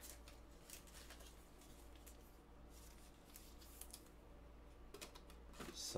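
Near silence: room tone with a faint steady low hum and a few faint ticks.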